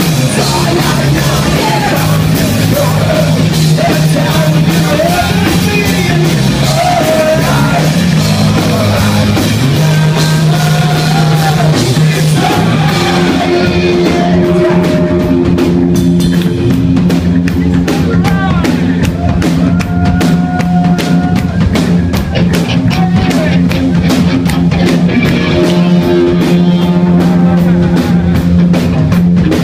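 Rock band playing loudly live: drum kit, bass guitar and electric guitar, with a lead singer's voice over them.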